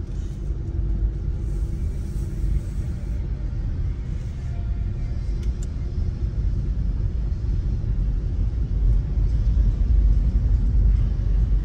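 Low, steady rumble of a car driving slowly, heard from inside the cabin: engine and tyre noise, growing a little louder near the end.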